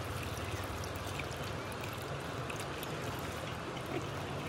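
Water poured from a plastic jug over bell peppers in a plastic bowl, a steady trickle and splash as the vegetables are rinsed by hand.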